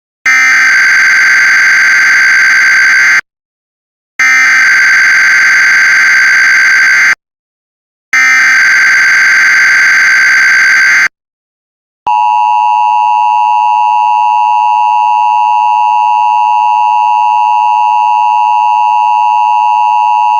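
Emergency Alert System alert tones: three bursts of SAME header data, each about three seconds long and about a second apart. Then the steady two-tone EAS attention signal starts and holds.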